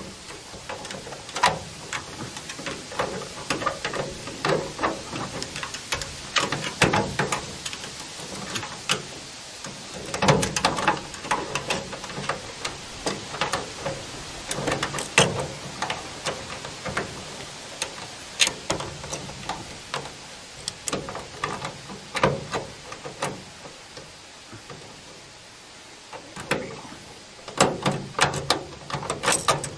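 Irregular clicks, taps and scrapes of a screwdriver and a stainless steel antenna mount plate being worked by hand into a pickup truck's bed-rail stake hole, with clusters of sharper knocks now and then.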